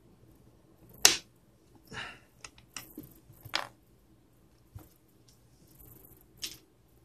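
Sharp plastic snaps and clicks as the clip-together plastic shell of an EasyAcc 5000mAh power bank is pried apart with a plastic pry tool and handled on a desk. The loudest snap comes about a second in, followed by a short scrape and a run of smaller clicks, with two more snaps later.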